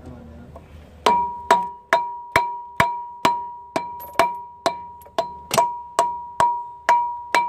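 Rubber mallet striking an aftermarket lightweight steel flywheel to knock it free of the crankshaft, its bolts already out: even blows about two a second, starting about a second in. The flywheel rings on with a steady tone between blows.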